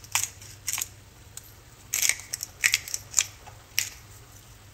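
Handheld pepper grinder cranked to crack black peppercorns: a series of short, crisp grinding crunches at irregular intervals.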